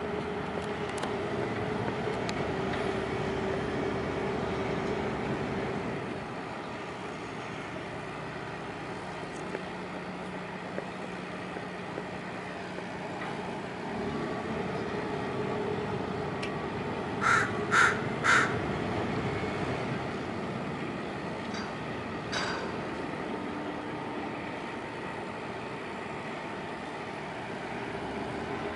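Steady drone of a fishing trawler's engine idling in the lock. Midway a bird calls three times in quick succession, the loudest sounds here, with one fainter call a few seconds later.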